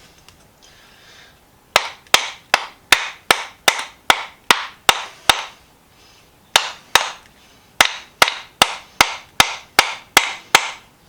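Hammer blows on a seized part of a rusted bench vise, in two steady runs of about ten sharp strikes each, roughly two and a half a second, with a short pause between. The part is being driven out and is barely moving.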